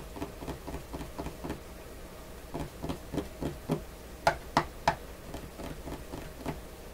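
A run of light knocks and taps, about three a second, from hands working on the radio chassis and leads, with three sharp clicks in quick succession about halfway through.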